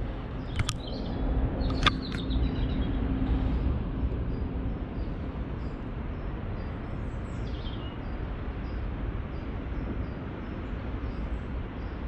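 Outdoor riverside ambience: a steady low rumble, two sharp clicks in the first two seconds, and a short bird call about seven and a half seconds in.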